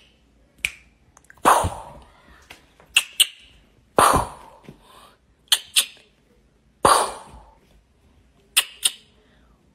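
Ginger kitten hissing and spitting three times in sudden sharp bursts that each fade off quickly, a defensive threat reaction. Short paired clicks fall between the hisses.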